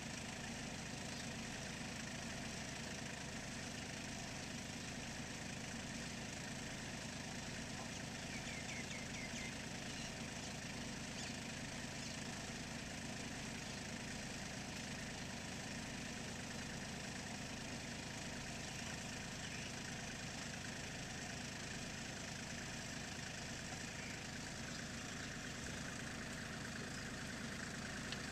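Compact farm tractor engine idling steadily.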